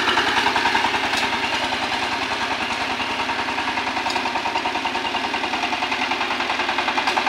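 Kirloskar Mega T15 power tiller's single-cylinder diesel engine running steadily as it puddles a flooded paddy field, a fast, even chugging that grows slightly fainter as the machine moves off.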